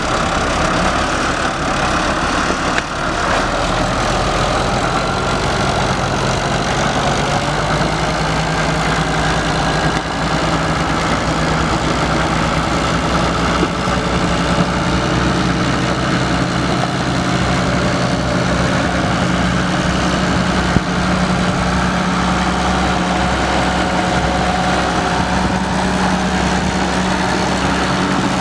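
Perkins six-cylinder diesel engine of a 1984 Massey-Ferguson 3545 tractor idling steadily.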